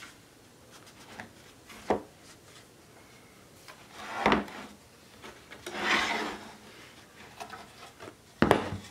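Hardwood boards scraping and knocking against each other as a dry-fitted edge joint on Beadlock loose tenons is worked apart. There is a sharp knock about two seconds in, then scraping around four and six seconds, and another sharp knock near the end.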